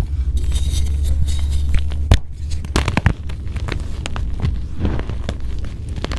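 Blocks of gym chalk being crushed and crumbled: a dense run of crisp crunches and crackles, a few sharper cracks about two to three seconds in, over a steady low rumble.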